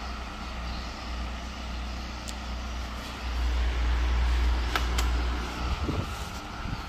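Miyako wall fan running with a steady hum and a low rush of air, which grows louder for a couple of seconds in the middle. A few sharp clicks come near the end as its pull cord is tugged.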